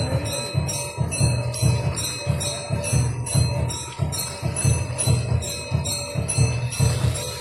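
Devotional instrumental music: a drum beating a steady, fast rhythm with jingling bells on each stroke.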